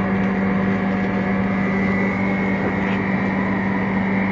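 Steady mechanical hum with a strong low tone from a running ultra-low-temperature screen-separation freezer machine.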